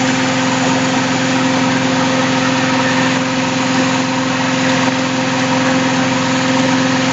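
Cement mixer truck's diesel engine running steadily, turning the drum as it pours concrete down the chute, with a constant droning hum.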